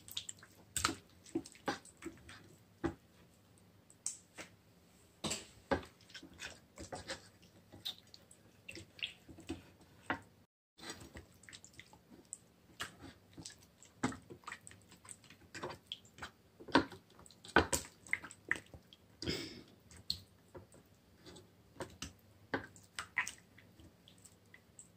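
Hands rubbing a soy sauce and oyster sauce marinade into a whole raw chicken: irregular wet squelches and smacks of hands on the slick skin.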